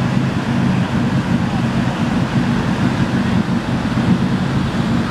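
Three Packard V12 gasoline engines of a WWII Higgins PT boat running at idle speed underway, a steady low rumble, with water rushing along the hull and wind on the microphone.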